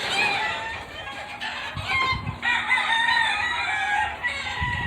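Chickens clucking and a rooster crowing, several calls overlapping.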